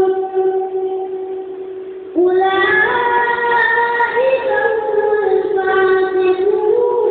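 A boy's high voice chanting unaccompanied in long, drawn-out melodic phrases. A long held note fades away, then after a short break a new phrase begins, steps up in pitch twice and sinks back down.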